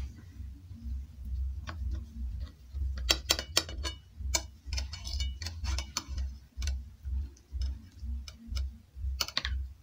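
Knife and fork clinking and scraping against a plate while cutting an omelette, with sharp clinks in clusters about three seconds in and again near the end. A low regular thump sits underneath.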